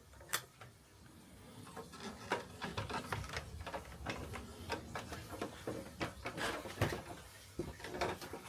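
A run of irregular knocks, clicks and rubbing, as of objects being handled and moved about. It starts with a single sharp click and grows busier from about two seconds in.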